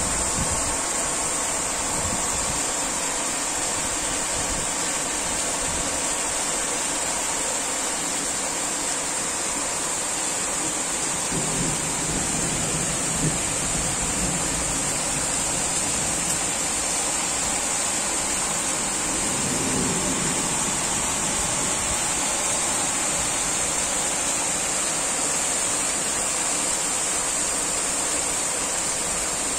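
Steady rain during a thunderstorm, an even hiss throughout, with two low rolls of thunder underneath, about eleven seconds in and again around twenty seconds.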